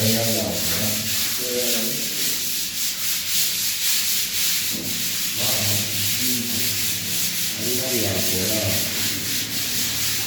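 A wall being sanded for painting: a scratchy abrasive rubbing in quick repeated strokes.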